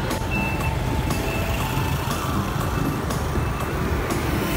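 Steady low rumble of motorbike engines and road noise while riding along a two-lane road among motorbike traffic.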